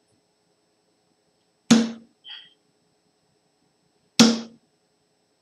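Two darts striking a bristle dartboard, each a sharp thud, about two and a half seconds apart.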